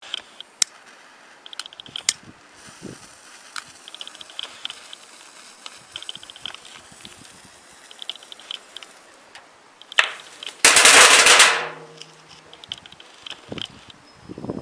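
Crackling ball firecracker going off inside a well: a loud, dense burst of crackling lasting about a second, then fading. Before it come faint scattered ticks and small crackles, and one sharp crack just before the burst.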